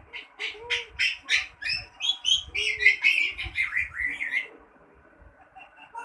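Grey parrot calling: a rapid string of short, high chirps and whistles that stops about four and a half seconds in.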